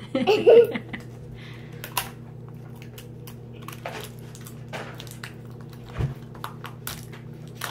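Scattered small clicks and crinkles of a small cardboard surprise-pack box being worked at by hand while someone tries to open it, over a faint steady hum.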